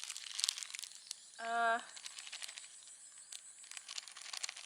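A person's voice calls out once, a short held note about a second and a half in, over faint small clicks and rustling of plastic and utensils.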